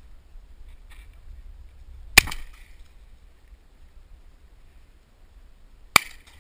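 Two shotgun shots about four seconds apart, each a sharp crack with a brief ring after it; the first is the louder.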